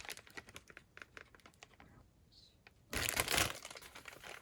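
Packaging crinkling and rustling as a newly unboxed grout brush is handled, with scattered small crackles and a louder rustle about three seconds in.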